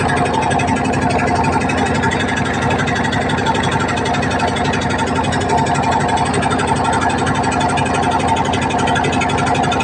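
Boat engine running steadily under way, a loud, even, rapid chugging hum.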